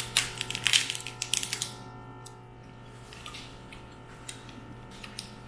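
Close-up eating sounds from steamed crab: a quick run of small clicks and cracks of shell for about the first two seconds, then only a few scattered clicks.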